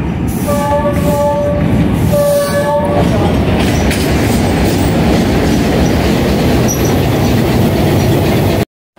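Diesel locomotive sounding its horn twice, a longer blast then a shorter one, then running past close by with loud engine rumble and wheel noise that cuts off suddenly near the end.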